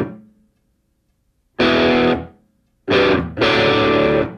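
Background music: distorted electric guitar chords in short stop-start stabs. A chord dies away at the start, followed by a silent gap, a short chord about one and a half seconds in, another gap, then a chord near three seconds in that is held.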